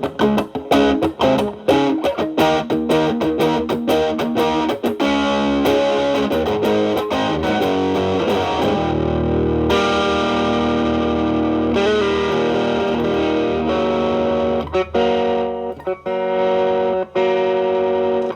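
Electric guitar (a Telecaster with alnico single-coils) played through a Boss SD-1 stacked after an MXR Distortion+, into an amp's clean channel. The guitar's volume is rolled back so the stacked drive cleans up to a lighter crunch. It starts with a run of quick picked notes, then settles into held, sustaining notes and chords.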